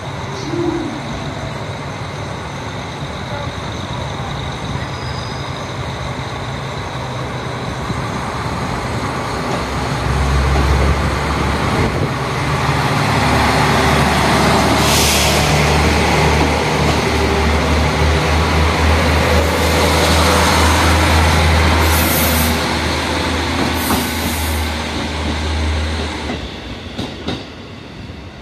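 Dōnan Isaribi Railway KiHa 40 diesel railcar train pulling out of the station: its diesel engine's low drone swells up about ten seconds in as it powers away, with the rolling noise of the cars passing close and a few brief high-pitched bursts, then fading near the end as the train draws away.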